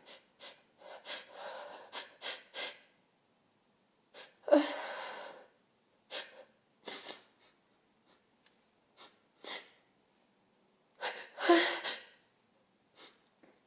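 A woman gasping and sniffing in short breathy inhalations as she tries to sneeze after taking chhinkni sneezing powder. She lets out two louder, sudden sneeze-like outbursts, one about four and a half seconds in and one near the end.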